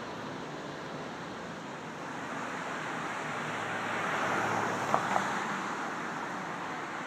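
A vehicle passing by: a rushing noise that swells to a peak about four to five seconds in and then fades, with two sharp clinks close together near the peak.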